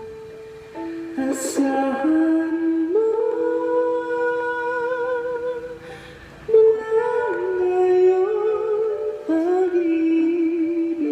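A singer humming a slow melody in long held notes with vibrato, taking a short breath between phrases.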